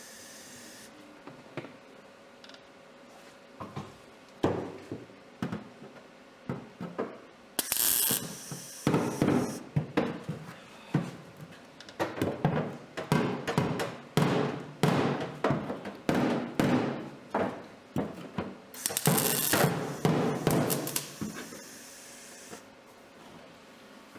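Welder laying a series of short tack welds on a thin sheet-metal patch panel: crackling bursts of about half a second each, in quick runs with pauses between.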